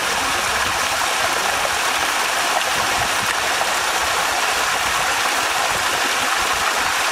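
Creek water cascading over rock ledges into a pool, a small waterfall: a loud, steady, even rush.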